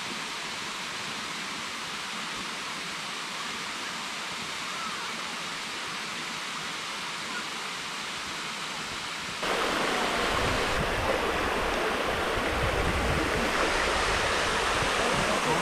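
Steady rushing of a waterfall heard from a distance. About nine seconds in, it jumps abruptly to louder, closer water running and splashing over rock ledges, with more low rumble.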